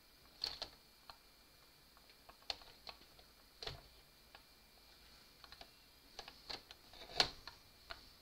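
Scattered light clicks and knocks as a Brother garter carriage is pushed by hand a short way along the needle bed of a Brother 930 knitting machine, the loudest click about seven seconds in.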